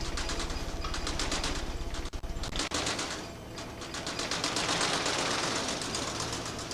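Rapid, even mechanical clatter at about ten beats a second, over a strong low pulsing that drops away about two and a half seconds in.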